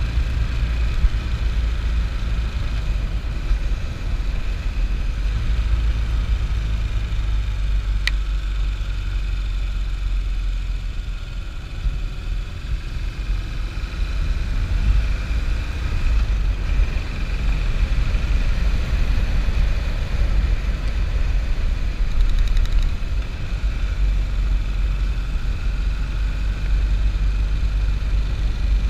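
Motorcycle engine running under way with wind rushing over the camera microphone, dominated by a steady low rumble; the sound dips briefly about twelve seconds in.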